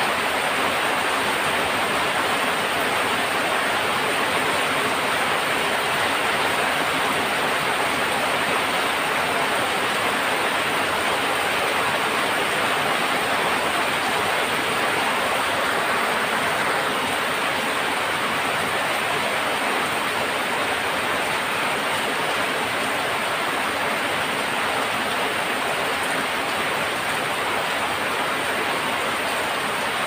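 Heavy rain falling steadily on corrugated tin roofs, with water pouring off the eaves.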